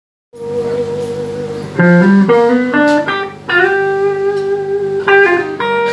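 A blues band playing live, led by a guitar that opens the song with a long held note, then a quick run of stepping notes and another long held note.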